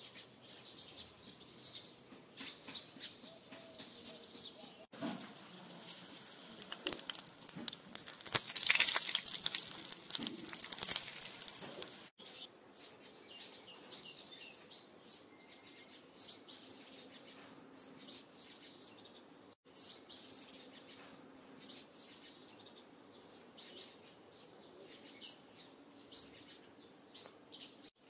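Small birds chirping on and off throughout. From about five to twelve seconds in, hot oil sizzles loudly as a small puri deep-fries in a tiny pan.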